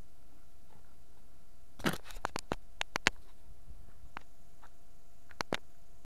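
Camera handling noise: a short rustle about two seconds in, then a quick run of sharp clicks and knocks, with a few more near the end.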